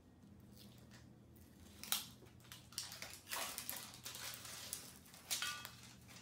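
The backing being peeled off a strip of Cat Tongue non-abrasive grip tape: a sharp crackle about two seconds in, then a run of rustling crackles as the backing is worked loose and pulled away.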